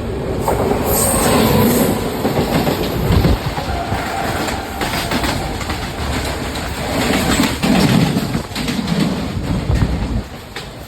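Indian Railways goods train rolling past, a loud rumble with wheels clacking over the rail joints; the sound falls away about ten seconds in.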